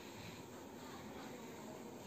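Quiet room tone: a faint steady hiss with no distinct sound standing out.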